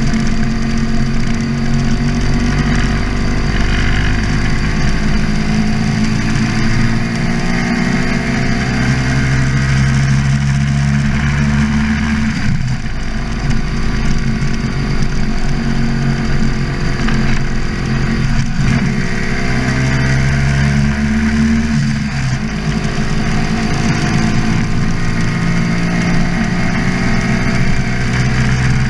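Sidecar motorcycle's engine pulling along the road, its note climbing steadily and dropping sharply at each gear change, three times in all, with steady wind rush.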